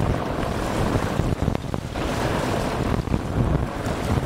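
Wind buffeting the microphone over a steady rush of water churned by a container ship's hull, with an uneven low rumble.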